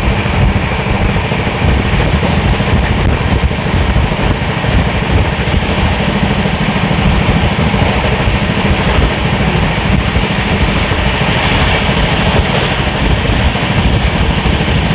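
Running noise of an express passenger train at speed, heard at the coach doorway: a loud, steady rumble of wheels on rail mixed with rushing wind.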